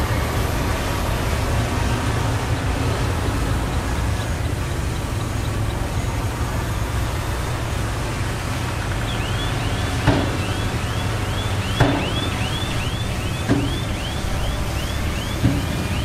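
Heavy diesel earthmoving machinery running steadily, a low rumble throughout. From about nine seconds in, a high rising chirp repeats about two to three times a second, and four short knocks are heard in the second half.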